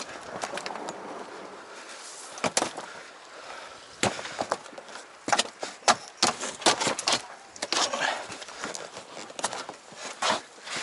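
Irregular sharp knocks and clatters of gear and an oar being handled aboard an inflatable boat. A couple of isolated knocks come first, then a dense run of them through the middle.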